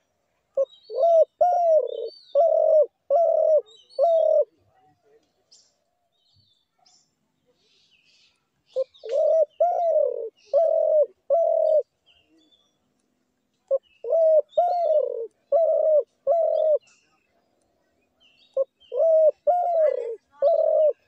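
A dove cooing: four phrases of five or six low hooting notes each, the second note of each phrase longer and falling, with a few seconds' pause between phrases.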